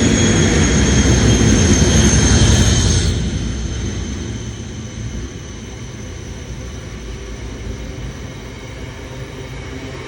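Class 56 diesel locomotive's Ruston-Paxman V16 engine working hard as it passes, with a steady high whine over a low rumble. About three seconds in the locomotive sound falls away and the quieter rumble of the loaded stone wagons rolling by continues.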